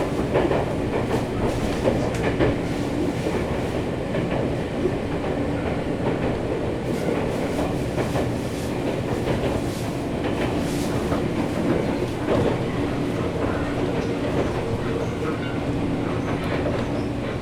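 Nankai 7100-series electric train running on the rails, heard from inside the passenger car: wheels clicking over rail joints over a steady rolling hum.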